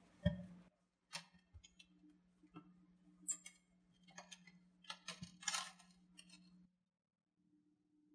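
Unpacking a microscope from styrofoam packaging: a knock as the foam is handled, then scattered light taps and clicks and brief crinkles of plastic wrapping as parts are moved in the foam tray, over a faint low hum that stops about two-thirds of the way through.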